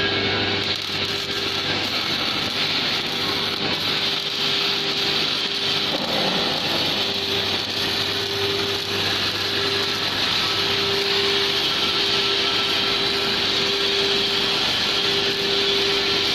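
MIG welding arc crackling steadily, a dense frying crackle, over a steady hum that drops out briefly several times.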